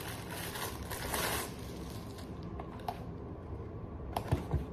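Packaging being handled while unboxing a smart door lock: rustling for about the first second and a half, then a few light clicks and a couple of short knocks near the end as parts are moved and set down.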